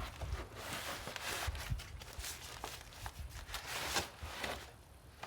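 Rustling and scraping of a cardboard box and its packaging being opened and handled, in uneven bursts, loudest about a second in and again around four seconds.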